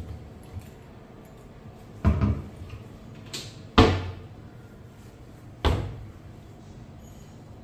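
Wooden kitchen cabinet doors being opened and shut by hand. There are several knocks as the doors close, about two seconds apart, and the loudest comes about four seconds in.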